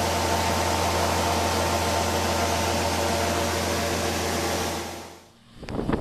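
John Deere 9860 STS combine running with its unloading auger pouring wheat into a grain cart: a steady mechanical noise over a low drone. It fades out about five seconds in, and uneven wind buffeting on the microphone follows.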